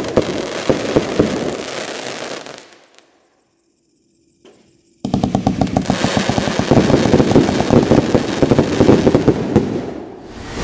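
Consumer firework compound cake firing dense, rapid strings of small reports. The firing fades out about three seconds in, then cuts off to complete silence. After two silent seconds it starts again abruptly with another fast volley of crackling pops, which dies away near the end.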